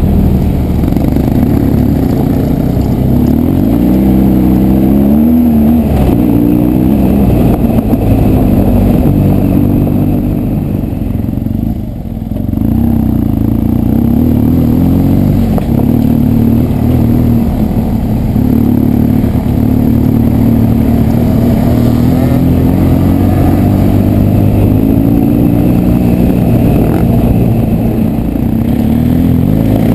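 BMW R1200 GS boxer-twin engine running under way on a dirt track, its pitch rising and falling as the throttle opens and closes. It eases off briefly about twelve seconds in.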